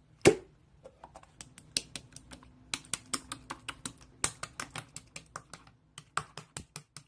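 Rapid, irregular light clicks and taps, a few each second, with one louder knock near the start.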